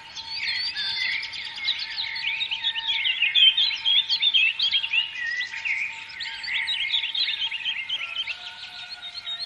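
A chorus of many small songbirds chirping and twittering at once, with quick overlapping calls and trills and no pauses.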